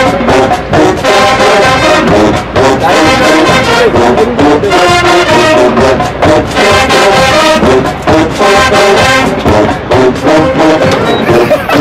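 Marching band playing a loud brass-heavy tune, trombones and trumpets holding chords over steady drum beats.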